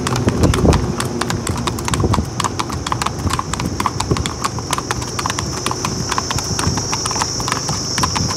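Hooves of two Marwari horses clip-clopping on asphalt at a brisk gait: rapid, even hoofbeats with a steady high-pitched hiss underneath.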